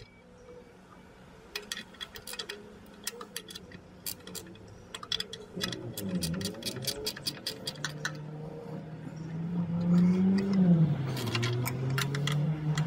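Sharp metallic clicks and clinks of hand tools working on the pulley and belt drive, then from about six seconds in a motor vehicle's engine running, its pitch wavering and getting louder until it is the loudest sound near the end.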